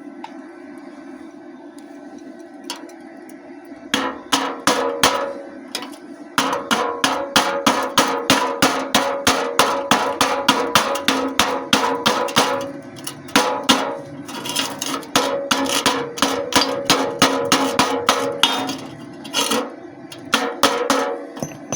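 Chipping hammer striking a freshly stick-welded joint in thin galvanized sheet steel, knocking off the slag in fast runs of taps, about five a second, with brief pauses. Each strike makes the thin sheet ring. A steady low hum runs underneath.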